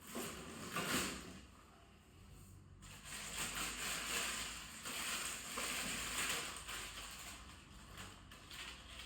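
Bicycle packaging being handled and pulled apart: crinkling and rustling, with a short burst about a second in and a longer, denser stretch of crackling in the middle.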